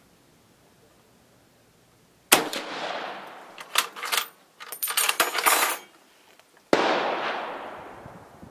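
6.5mm Carcano M38 bolt-action short rifle fired twice: a shot about two seconds in, then the bolt worked open and shut in a quick run of metallic clacks, then a second shot near the end. Each shot trails off in a long echo.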